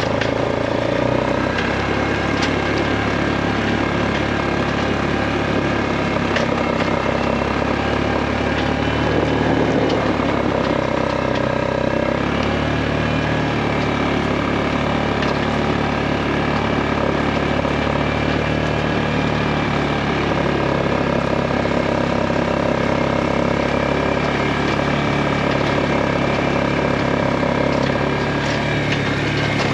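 Engine of a vehicle towing a log splitter, running steadily, its pitch shifting slightly about twelve seconds in.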